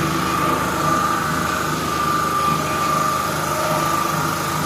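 A motor running steadily with a high, even whine over a low hum.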